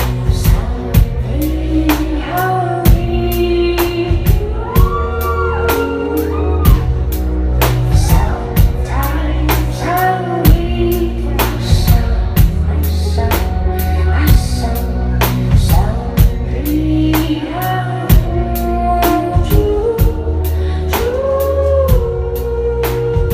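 Live band music: a woman singing long, gliding notes over a steady drum-kit beat, about two hits a second, and a heavy bass.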